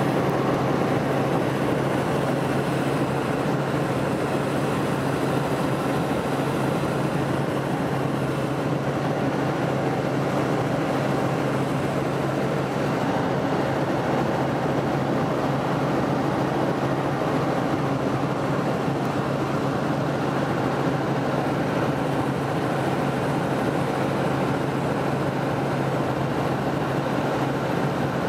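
Helicopter in steady flight, heard from on board: a constant drone of rotor and engine with a steady low hum.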